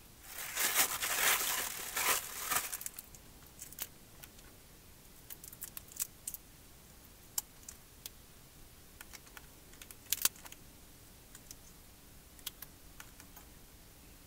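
A plastic bag rustling and crinkling for a couple of seconds, then scattered small clicks and crackles as raw shrimp are handled and peeled by hand.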